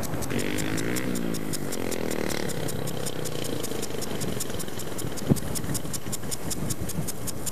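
An engine running, its pitch dipping and rising over the first two or three seconds, over a steady fast ticking.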